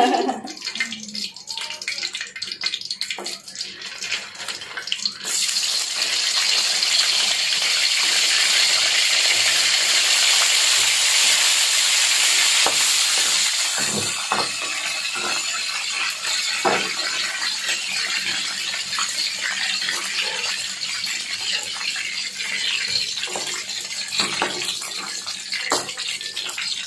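Nuggets frying in hot oil in a wok. A loud sizzle starts suddenly about five seconds in as they go into the oil, then eases after about nine seconds to a quieter crackle, with a few knocks of the metal spatula against the wok as they are turned.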